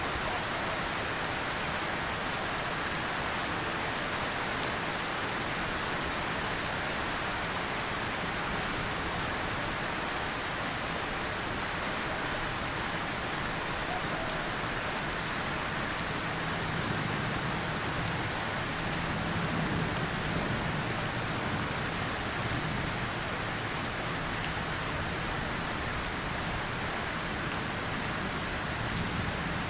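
Steady rain falling on tropical forest foliage, an even hiss with a few sharper drips.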